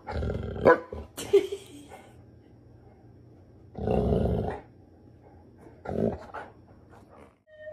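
Golden retriever grumbling with low growl-like vocalisations in four bouts, the longest near the middle.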